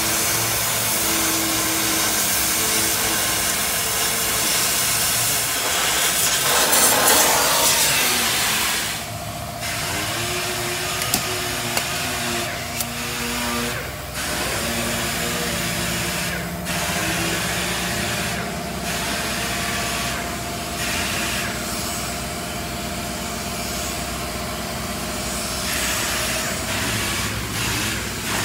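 Oxy-acetylene gas cutting torch hissing steadily as it burns through rusted bolts on a truck's steel frame crossmember, loudest for a couple of seconds about seven seconds in, and breaking off briefly several times later.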